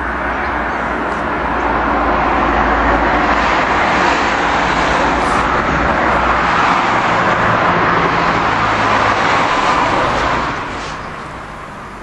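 A passing vehicle: a steady rushing noise that swells over the first couple of seconds, holds, and fades away about ten seconds in.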